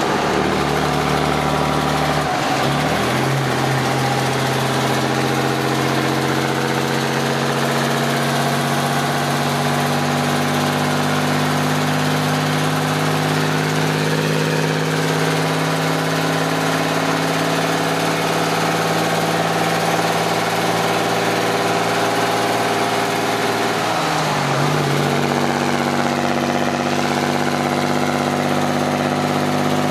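1965 White Freightliner cabover's Cummins NHC-250 inline-six diesel running through straight pipes while the truck drives, heard from inside the cab. The engine note is steady, dipping in pitch and climbing back twice: about two seconds in and again about three-quarters of the way through.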